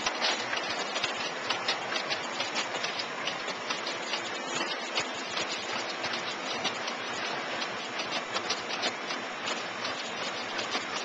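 Packaging machinery and its belt conveyor running, a steady clatter with many rapid, irregular clicks and ticks.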